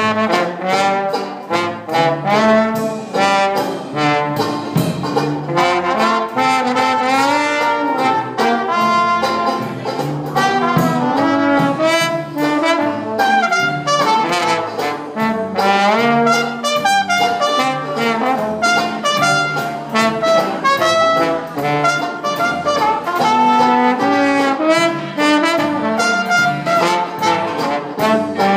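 Dixieland jazz band playing live: trombone and trumpet carry the melody together over a steady rhythm-section beat.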